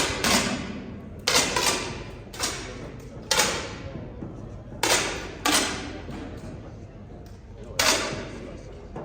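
Air rifle shots fired one after another by several shooters, about eight sharp cracks at uneven intervals, each with a short fading echo.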